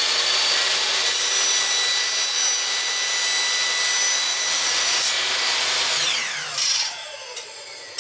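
Electric chop saw starting up and cutting through a plastic wall sleeve, a loud steady whine with the rasp of the blade in the plastic; about six seconds in the motor is let go and winds down in a falling whine.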